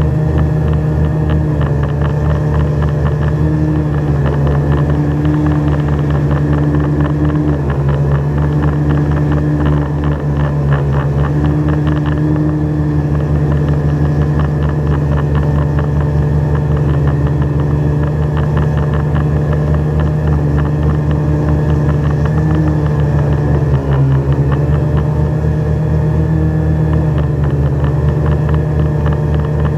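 Drone's propellers and motors buzzing steadily in flight, heard up close from the drone itself, the pitch shifting slightly as it manoeuvres, with a brief dip about three-quarters of the way through.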